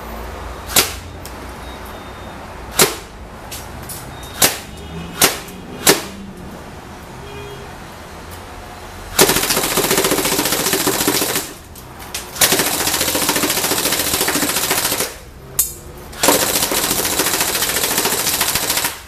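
ICS MP5 SD PDW electric airsoft gun firing: a handful of single shots, then three long full-auto bursts of rapid fire, each lasting a few seconds.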